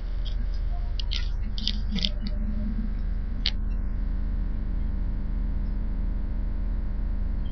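Steady low hum inside a passenger train carriage, with a handful of short high squeaks in the first few seconds.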